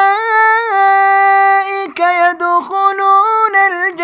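A male reciter's unaccompanied voice chanting the Quran in melodic tajweed style, dry and without added effects. It holds one long, ornamented note, breaks briefly about two seconds in, then carries on in shorter melodic phrases.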